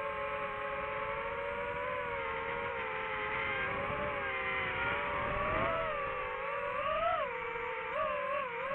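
DJI FPV drone's motors and propellers whining, the pitch rising and falling with the throttle: a steady whine that sinks a little, climbs around seven seconds in, then wavers quickly up and down near the end.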